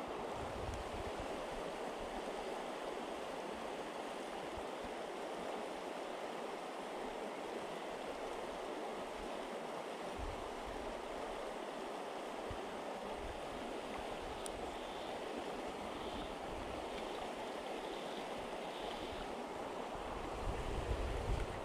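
Steady rush of a fast, shallow river running over riffles around the wading angler, with low wind rumble on the microphone coming and going and swelling briefly near the end.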